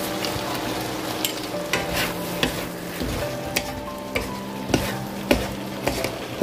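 Squid and garlic scapes stir-frying in a sauce-coated pan: a steady sizzle, with the spatula scraping and knocking against the pan at irregular moments about once a second.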